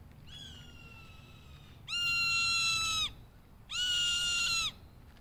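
Young hawk calling in answer to its mother: three drawn-out, level, high screeching calls of about a second each, the first fainter and the last two loud.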